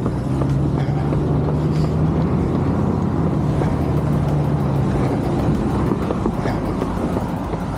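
An SUV driving past on the road, its engine and tyres making a steady hum that fades about five and a half seconds in.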